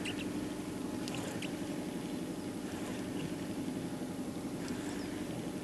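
Outboard motor running steadily at low trolling speed, a constant hum, with a few faint ticks over it.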